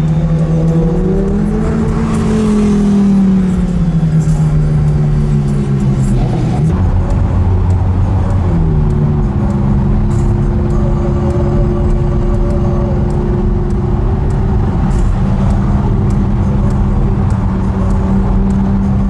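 Ferrari F430's V8 engine heard from inside the cabin while driving: its note climbs, then slowly sinks, drops suddenly about seven seconds in, climbs again and then holds steady at a cruising pitch.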